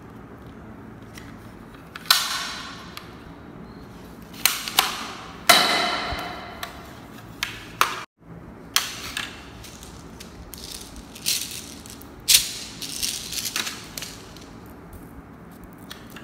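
Sharp plastic clicks and knocks from a toy airsoft pistol being handled and set down on a tiled floor: about a dozen irregular knocks, each with a short ringing tail.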